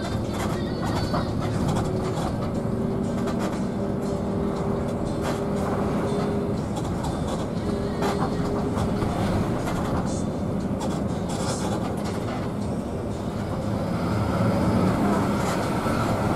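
Inside a long-distance coach on the move: a steady drone of engine and road rumble with rattles and clicks from the cabin. It grows louder near the end.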